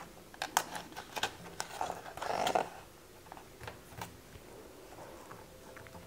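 A page of a picture book being turned by hand: soft paper rustling and a few light handling clicks, mostly in the first half.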